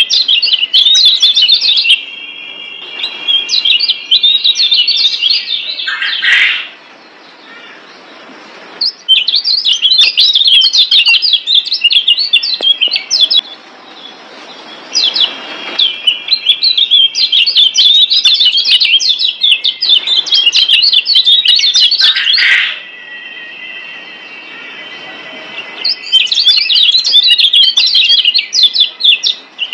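Lombok yellow white-eye (kecial kuning, a Zosterops) singing in bouts of fast, high twittering chirps over a held whistle, with short pauses about six, thirteen and twenty-three seconds in.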